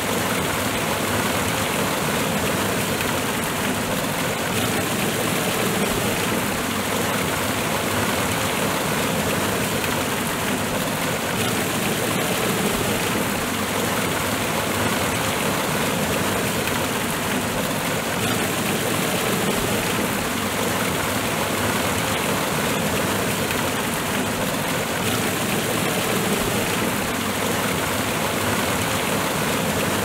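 Waterfall: a steady, even rush of falling water that does not change.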